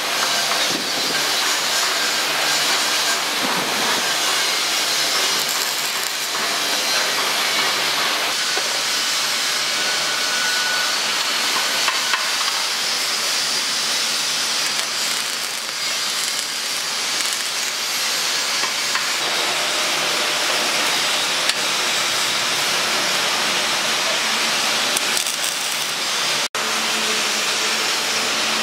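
MIG welding steel rings: a steady, loud hissing crackle of the welding arc, with a momentary drop-out near the end.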